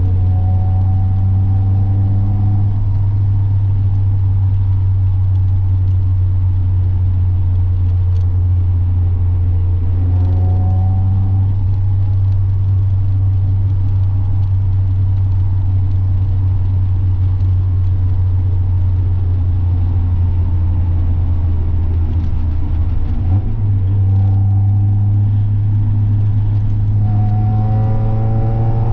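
NA Mazda Miata's four-cylinder engine and exhaust heard while driving: a steady low drone, with the engine note climbing under acceleration at the start, again about ten seconds in, and over the last few seconds.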